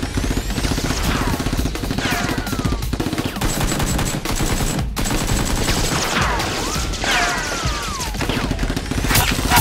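Rapid automatic gunfire, a sustained fusillade of shots, with high whistling sounds that fall in pitch, several times over.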